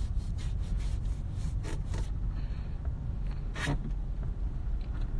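Steady low rumble of a moving car heard from inside the cabin, with several short rustling and scraping noises close to the phone's microphone, the loudest a little over three and a half seconds in.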